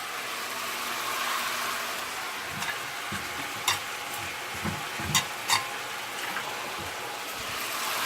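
Chicken frying in hot oil in a pan, with a steady sizzle, while it is stirred, the utensil clicking sharply against the pan a few times near the middle.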